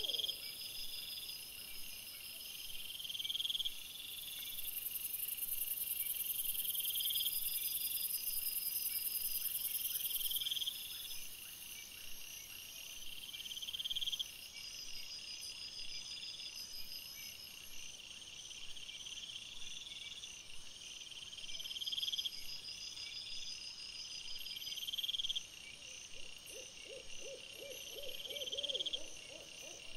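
Insects trilling in short rising phrases that repeat every two seconds or so, over a steady high buzz that fades about ten seconds in. Near the end a lower, rapidly pulsed animal call comes in. The sound is raised in pitch by the sped-up playback.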